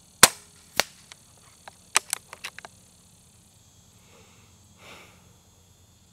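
Benjamin Fortitude .22 regulated PCP air rifle firing one shot, a sharp crack, followed about half a second later by a second, smaller snap. About two seconds in comes a quick run of small clicks.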